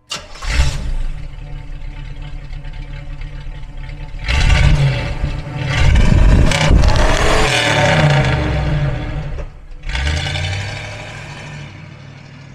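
Chevrolet Monza Spyder's V8 exhaust idling, then blipped twice, each rev falling back to idle. Near the end the car pulls away and the engine note fades into the distance.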